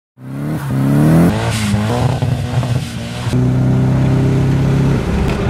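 Car engine accelerating, its pitch climbing and dropping back twice as it shifts up, then running at a steady pitch about three seconds in.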